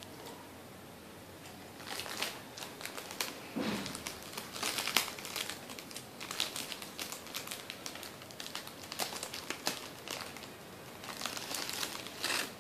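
Plastic biscuit packet crinkling and crackling in the hand as a cracker is taken out. The crackles are irregular and start about two seconds in, with a short lull before a last flurry near the end.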